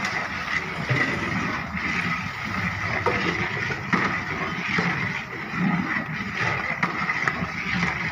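Long-handled metal ladle scraping and clanking against the sides and bottom of a large aluminium pot as a thick masala mixed with flour is stirred, the strokes coming irregularly over a steady hissing background noise.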